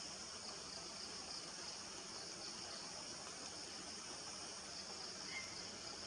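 Steady, high-pitched chorus of insects, a continuous even buzz with no breaks, with one faint short chirp a little before the end.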